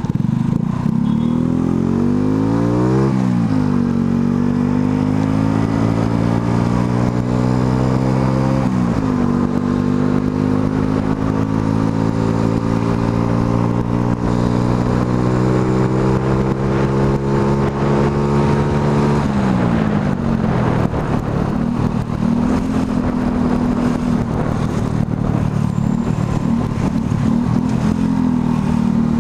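Motorcycle engine heard from an onboard camera, pulling up through the gears: its pitch rises and drops sharply at a shift a few seconds in and again near the ten-second mark, climbs steadily for about ten seconds, then falls off and runs at an even speed for the rest.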